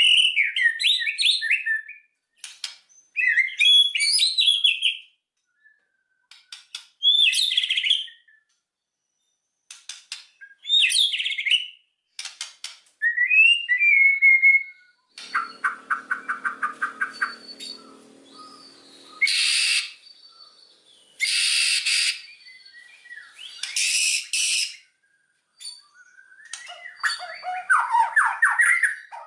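White-rumped shama singing loud whistled phrases in short bursts with brief pauses between them; in the second half the song turns to a fast rattling series and several harsh, scratchy bursts before the whistled phrases return near the end.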